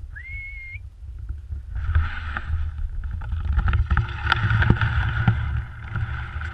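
A single short blast on a dog training whistle, rising in pitch and then held for under a second. From about two seconds in, wind buffets the microphone in a steady rush and rumble, with scattered sharp crunches and clicks.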